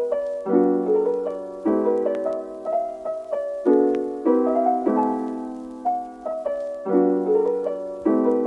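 Background music: soft piano chords struck about once a second and left to ring out, in a gentle lo-fi style.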